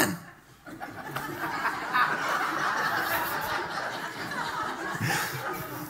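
A roomful of people laughing and chuckling together. The laughter starts about a second in and slowly tails off.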